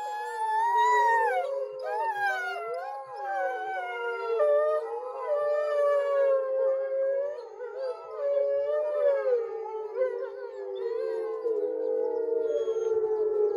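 Several wolves howling together in a chorus, their long gliding howls overlapping at different pitches.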